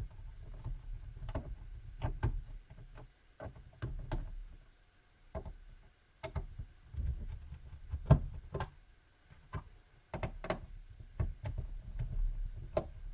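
Screwdriver backing out the long screws of the laptop's bottom access cover. It grinds low in stretches, with pauses between screws and scattered sharp clicks and taps of the driver and screws against the plastic case.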